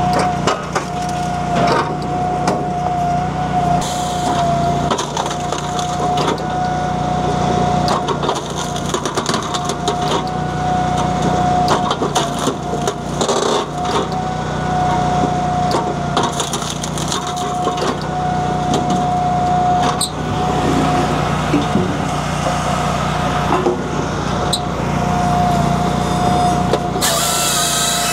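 Japa 365 firewood processor running on its Honda iGX700 V-twin engine, with a steady whine under repeated cracks and knocks as logs are split and pieces drop onto the conveyor. Near the end a hiss and a higher whine join in.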